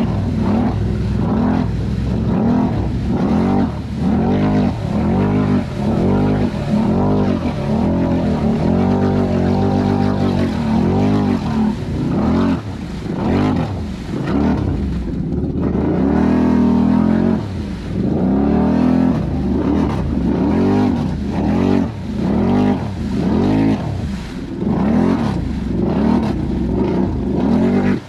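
Can-Am Renegade XMR 1000 ATV's V-twin engine, fitted with an aftermarket megaphone exhaust, revving up and dropping back over and over, about once a second.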